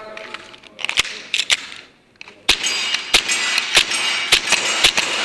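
Gas-blowback airsoft pistol shots: a few single cracks, then a rapid string of shots about two a second over a steady hiss.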